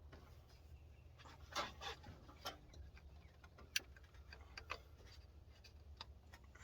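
Faint scattered clicks and light knocks of hand tools and metal parts being handled while the drive belt and pulley are refitted on the engine, with one sharper click a little past the middle, over a low steady hum.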